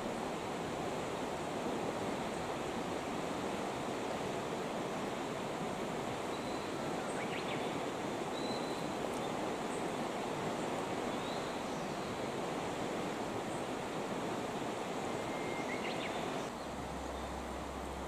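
Steady rush of a wide, fast-flowing river current over a stony bed, with a few faint, short high chirps over it. The rush drops a little near the end.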